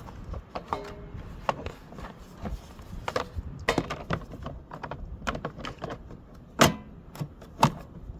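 Irregular clicks and knocks of a mower's engine cover and parts being handled and fitted back in place, with one louder knock about six and a half seconds in.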